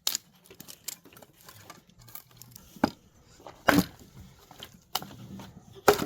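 Scattered sharp knocks and clicks at uneven intervals, about six of them, with faint rustling between: hand work with food and utensils, going on from chopping just before.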